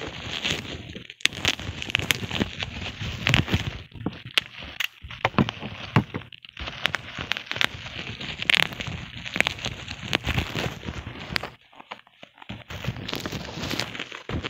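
Plastic bubble wrap crinkling and crackling with many sharp clicks as hands rub and pull at a bubble-wrapped box, going briefly quiet about three quarters of the way through.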